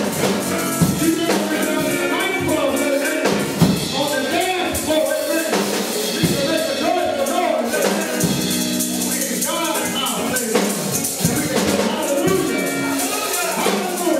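Live gospel music from a small church band, with drum kit, keyboard and guitar, percussion keeping a steady beat and voices singing over it.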